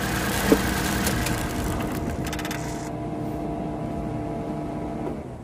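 Fuel-injected Suzuki Multicab engine idling steadily and smoothly on a new ignition coil, its misfire cured. There is a sharp click about half a second in, and the engine falls quiet near the end.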